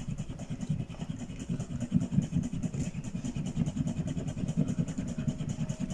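A steel mezzotint rocker, held in a weighted pole, rocking across a copper plate: its toothed edge makes a fast, even rattle of tiny clicks as it walks forward, graining the plate.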